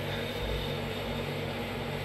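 Steady machinery hum over an even hiss, running without change.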